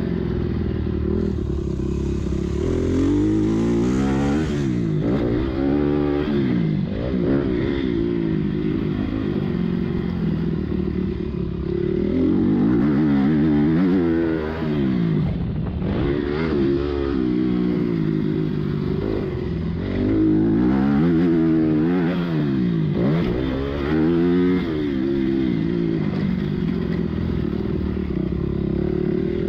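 Motocross dirt bike engine heard from on board, revving up and falling back over and over as the rider accelerates out of turns and rolls off the throttle, its pitch climbing in repeated sweeps every few seconds, with some rattle from the bike.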